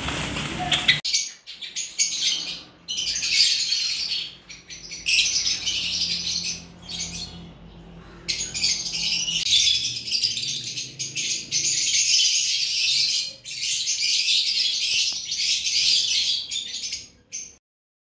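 A flock of small cage birds chirping and twittering densely, in several stretches with short dips, cutting off abruptly shortly before the end.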